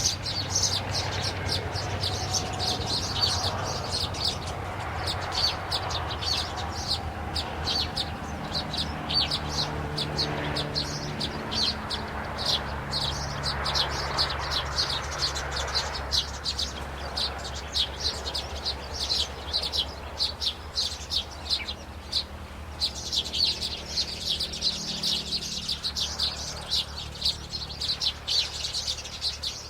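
Small birds chirping: rapid high-pitched chirps, several a second, going on almost without break, with a brief lull about two-thirds of the way through, over a steady low hum.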